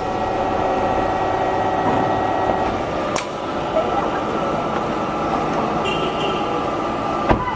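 Dental floss making machines running: a steady machine hum with several held tones, and a sharp click about three seconds in and another near the end.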